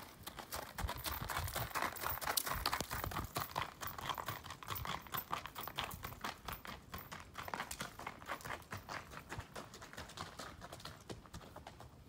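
Gaited horse's hooves striking the ground in quick, irregular clip-clops, fading near the end.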